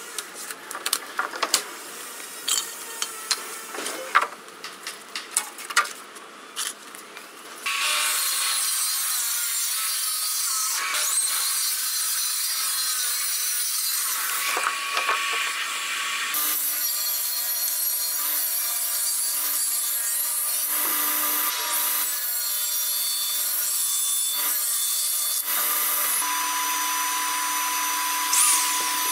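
Light taps and clicks of hand tools, then a plunge-cut circular saw on a guide rail starts and runs steadily, cutting through a plywood sheet. Later a small corded router runs with a steady whine, routing plywood.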